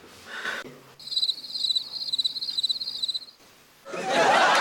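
Crickets chirping in a quick, even run of pulses for about two seconds. Near the end, a much louder wash of crowd noise and music cuts in.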